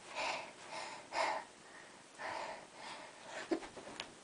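A girl breathing audibly, several puffs of breath about a second apart as she moves into a handstand, with a couple of faint taps near the end.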